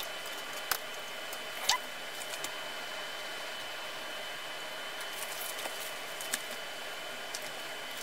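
Paintbrush dabbing and stroking oil paint onto a canvas panel: soft scratchy strokes and light ticks over a steady hiss, with two sharper clicks about a second apart near the start.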